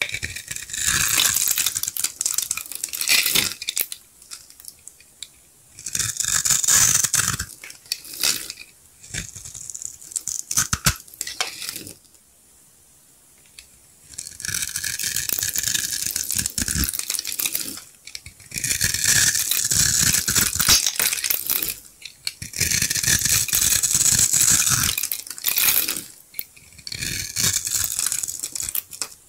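A snap-off utility-knife blade cutting and scraping a grid-scored bar of dried soap, so that small soap cubes crunch and crumble off. It comes in crisp bursts of a few seconds each, with short pauses between them.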